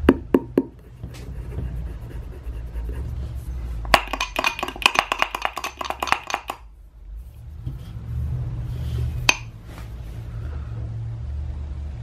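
A 1980s ATS pedestrian call-button unit being handled: a few sharp clicks at the start, then a dense run of rapid clicks and rattles for about two and a half seconds midway, and one more sharp click later, over a steady low rumble.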